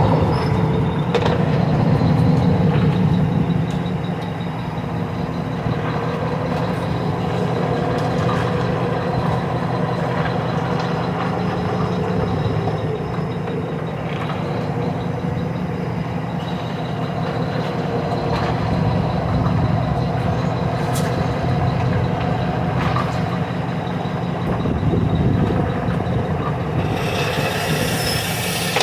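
A steady low mechanical rumble, loudest in the first few seconds.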